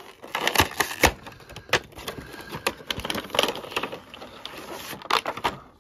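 A cardboard retail box being slid out of its cardboard sleeve and its tab flap pulled open: scraping and rustling of card, with a few sharp knocks and clicks, two of them loud near the start.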